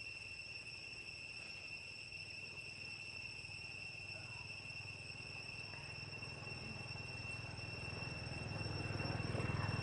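An insect drones steadily on one high pitch. A low rumble grows louder near the end.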